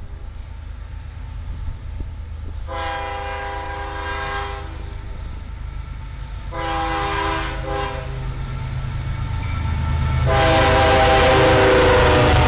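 Canadian Pacific GE ES44AC diesel locomotives sound their multi-tone air horn in the grade-crossing pattern as they approach: a long blast, then a long and a short, then a final long blast held as the units pass. Under the horn, the engines and the rumble of the wheels grow steadily louder and are loudest near the end.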